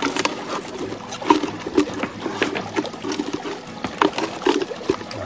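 Thin plastic bottle crackling and clicking in quick, irregular bursts as it is squeezed and handled, over a small stream trickling among rocks.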